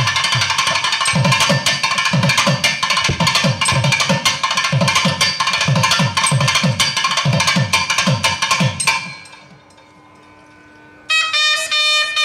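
Thavil drumming: rapid strokes, with deep bass-head strokes that fall in pitch, over a steady drone. The drumming stops about nine seconds in, leaving only a faint drone, and a nadaswaram comes in with a held note near the end.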